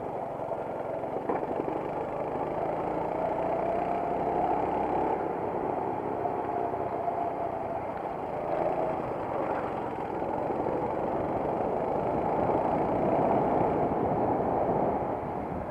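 Racing kart engine heard from on board during a lap, its pitch rising and falling as the kart accelerates and eases off through corners.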